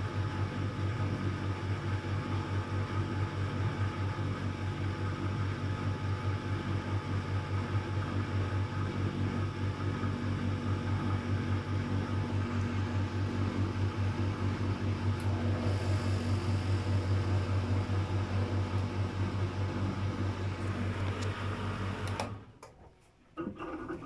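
Luxor WM 1042 washing machine's drain pump humming steadily as it pumps the water out of the drum, then cutting off suddenly near the end, followed by a few short knocks.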